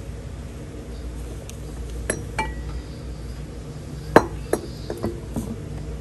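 Glass jars clinking against each other as they are picked up and moved on a shelf. A couple of light clinks come about two seconds in, the loudest a little after four seconds, then several softer ones, over a steady low background hum.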